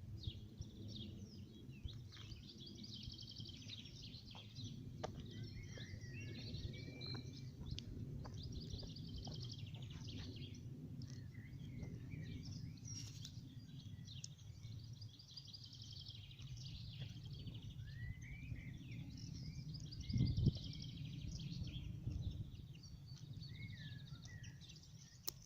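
Small birds chirping and twittering over a steady low rumble, with one brief louder thump about twenty seconds in.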